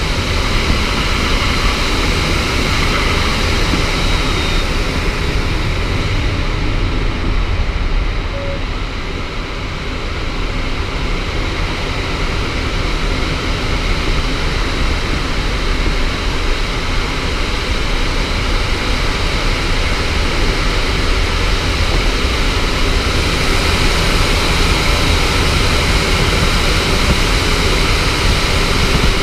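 Steady rush of airflow over a glider's canopy inside the cockpit of an engineless sailplane. It eases a little about a quarter of the way in, then builds again toward the end.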